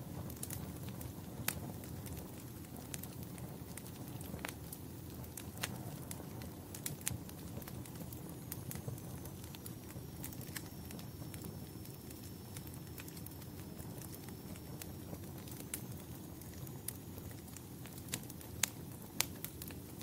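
Wood fire burning in a fireplace: a steady low rumble of flames with irregular sharp crackles and pops, a few louder pops near the end. A faint high thin whistle runs through the middle.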